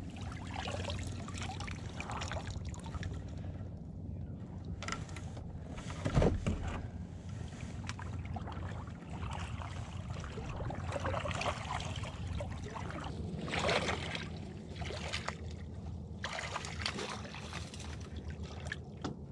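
Paddle strokes through calm water: repeated splashes and drips from the paddle blade every second or two, with one sharp knock about six seconds in and a steady low rumble underneath.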